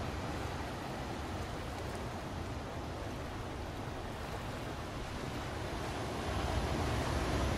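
Ocean surf breaking and washing onto the shore, a steady rushing noise with a low rumble that swells louder about six seconds in.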